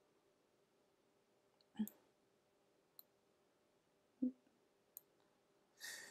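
Computer mouse clicking a few times, a second or two apart, against near silence, with two louder dull knocks in between and a short breathy hiss near the end.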